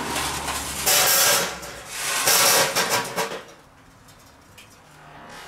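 Glowing charcoal briquettes tipped out of a chimney starter into the steel Petromax Atago, clattering and rattling onto its grate in two loud pours, then going quiet about three and a half seconds in.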